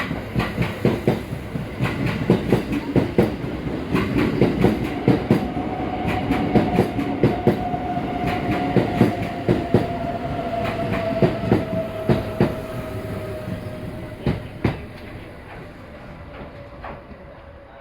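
Kintetsu electric train running along the platform, its wheels clattering fast over rail joints and points. About five seconds in, a steady whine starts and drifts slightly lower in pitch. The clatter thins out and the sound fades near the end.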